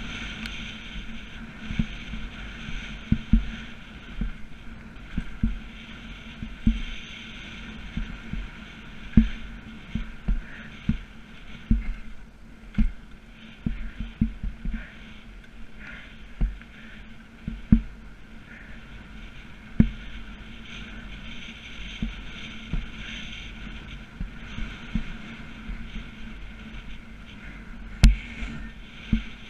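A mountain bike rattling and knocking as it is ridden down a rough downhill trail, with irregular thuds from bumps over a steady rolling noise.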